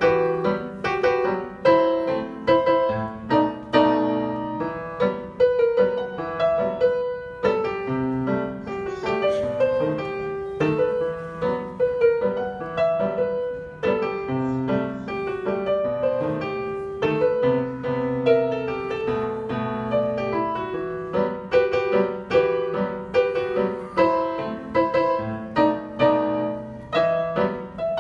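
Digital piano played with both hands: a continuous piece, a melody over held lower notes, without a break.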